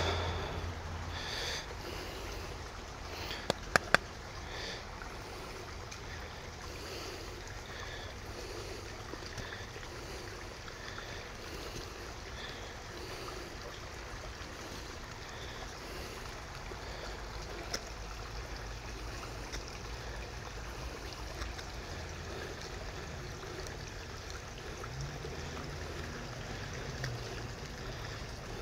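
Steady rush of a small creek flowing over rocks. A quick run of three sharp clicks comes about four seconds in, and a single click comes near the middle.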